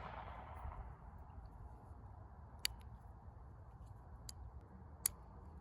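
The ringing echo of a .22 WMR mini-revolver shot dies away over the first second, then a few faint sharp clicks sound over a low steady background.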